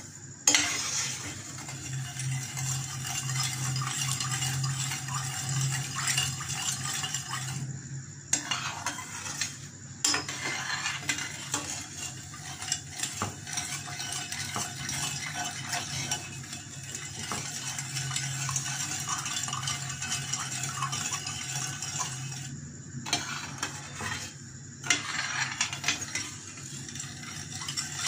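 Metal spoon stirring and scraping sugar and water around the bottom of a stainless steel pan, with small clinks against the metal and a few short breaks. The sugar is being dissolved into syrup and kept moving so it does not burn on the bottom.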